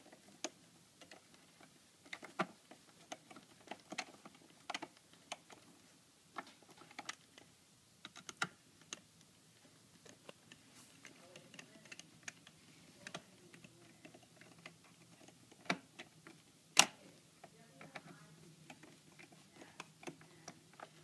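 Scattered small clicks and taps of hands working a newly fitted tilt latch and its screws, irregular and sparse, with one sharper click about 17 seconds in.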